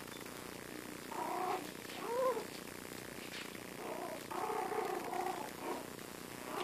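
Four-week-old Yorkshire terrier puppies whimpering in short pitched calls as they play: one about a second in, a rising-and-falling call at about two seconds, and a longer string of calls from about four to five and a half seconds.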